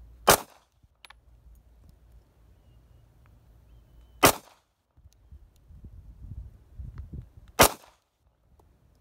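Three single shots from a SCCY CPX-2 9mm pistol, each a sharp crack with a short ring-off, spaced three to four seconds apart.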